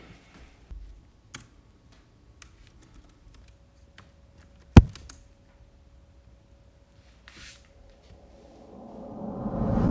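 Computer keyboard keys clicking in scattered, uneven typing, with one loud, sharp click about five seconds in. Near the end a low rumbling swell builds up and grows louder.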